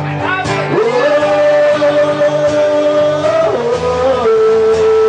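Live rock band playing: a male lead singer holds a long sung note, then drops to a lower held note, over strummed guitars and drums.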